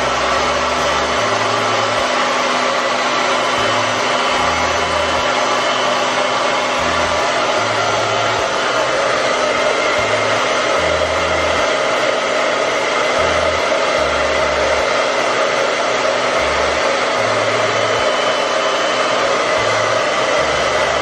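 Handheld hair dryer running steadily, blowing on a wet cat to dry its fur, with an uneven low rumble coming and going underneath.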